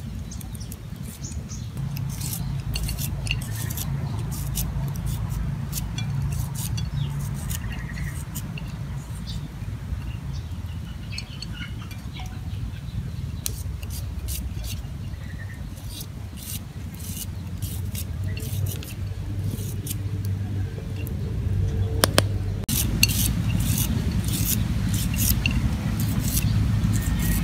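Garlic cloves being sliced on a small metal hand slicer: quick scraping clicks, densest in the last few seconds. A steady low engine-like hum runs underneath.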